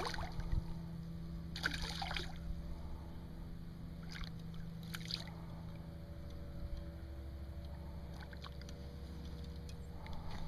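Hooked bass swirling and splashing at the water's surface near the shore, heard as a few brief, faint splashes about two and five seconds in, over a steady low hum.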